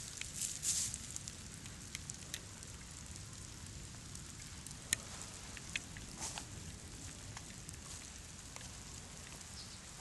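Hailstones rustling and crunching in a hand during the first second, followed by scattered sharp clicks and crackles over a low steady rumble.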